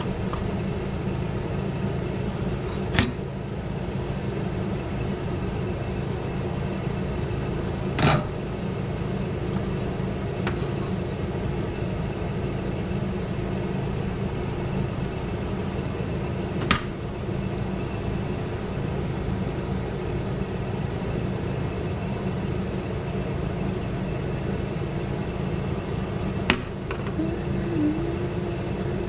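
A steady machine-like hum, with four sharp clicks or knocks spread several seconds apart.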